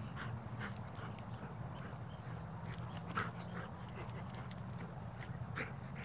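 A dog whimpering in several short bursts while at play, over a steady low hum.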